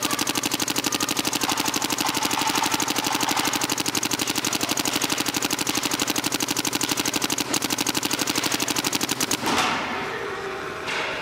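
Planet Eclipse GSL electronic paintball marker firing a fast, even stream of shots as it empties a pod of paint, stopping about nine and a half seconds in.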